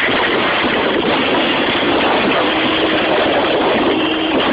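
Loud, steady vehicle noise heard from inside a car, with a steady hum coming in about halfway through.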